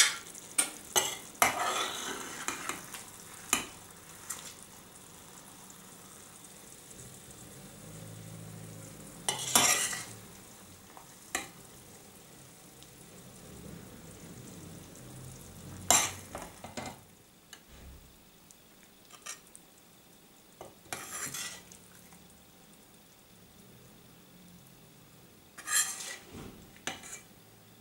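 A metal serving spoon scraping and clinking in a stainless frying pan and on a ceramic plate as thick tomato-and-egg sauce is ladled out, in brief strokes every few seconds. Between them the sauce in the just-switched-off pan still sizzles faintly.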